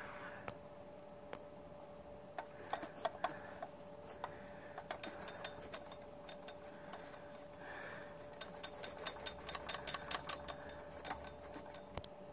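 A failed clutch throwout bearing, seized and with its face sheared off, jingling faintly as it is moved, giving scattered, irregular metallic clinks that come thicker in the second half. A faint steady hum runs underneath.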